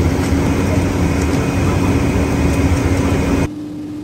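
Steady cabin noise inside a Boeing 777 on the ground: a low rumble with a steady engine hum. Near the end it drops suddenly to a much quieter hum.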